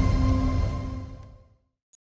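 Background music with sustained tones over a deep low end, fading out to silence about a second and a half in.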